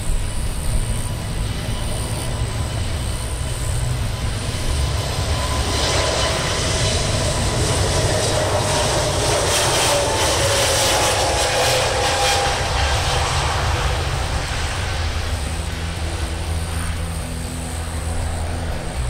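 Airbus A320neo's Pratt & Whitney geared turbofan engines at takeoff power as the airliner passes, swelling louder from about a third of the way in and fading near the end. The engine tones slowly fall in pitch, over a steady low rumble.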